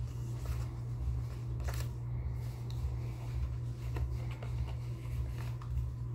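Paper pages of a CD booklet rustling and flicking as they are leafed through and handled, with a few light clicks and taps from the case. A steady low hum runs underneath.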